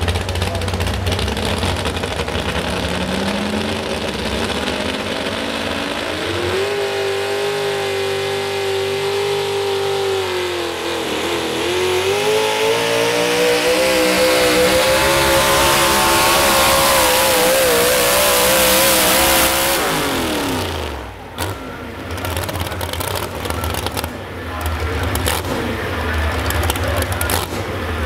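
Modified 4x4 pulling truck's engine: it runs low, then revs up and holds at wide-open throttle as it drags the weight-transfer sled, its pitch dipping briefly about halfway and climbing again. About two-thirds of the way in the engine comes off the throttle and the pitch drops away sharply as the pull ends, leaving a lower, uneven running sound.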